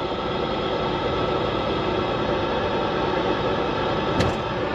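Volvo semi-truck's diesel engine running steadily, heard from inside the cab, with a single short click about four seconds in.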